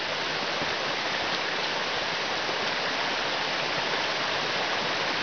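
A small rocky creek running and splashing over stones, a steady rush of water.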